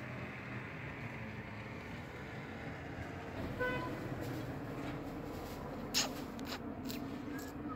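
Steady low rumble of a vehicle engine and street traffic that grows stronger about three seconds in. A brief car-horn toot comes a little past three and a half seconds, and a sharp click about six seconds in.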